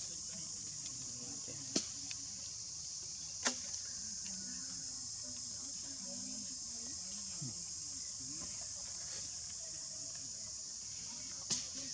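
Steady, high-pitched chorus of insects, with a few sharp clicks: two in the first few seconds and one near the end.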